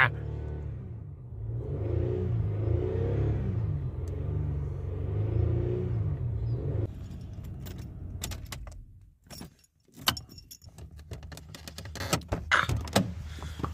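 Car engine running with a steady low hum and slight pitch swells, as if lightly revved, for about seven seconds, then dying away. This is followed by a series of sharp clicks and a jangle like keys.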